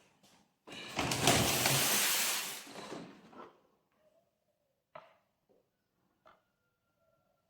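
A door being pushed open with a long, loud scraping rattle lasting about two and a half seconds. Two sharp knocks follow, a few seconds later.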